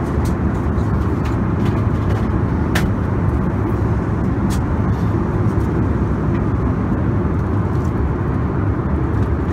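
Steady low drone inside an Airbus A321 airliner cabin in flight: engine and airflow noise, with a few faint light clicks.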